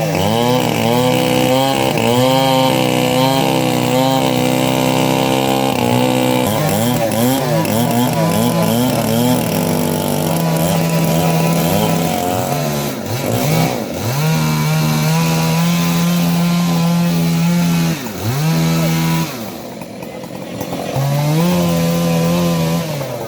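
Chainsaw cutting up a fallen kapok tree. The engine pitch rises and dips repeatedly as the chain bites into the wood, then holds steady at high revs for a few seconds at a time, with a brief drop in level a little past the middle.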